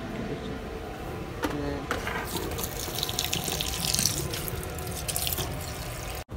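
Tap water running and splashing onto cloth rags in a stainless steel sink, strongest about halfway through. A couple of knocks come about a second and a half in, and the sound cuts off abruptly near the end.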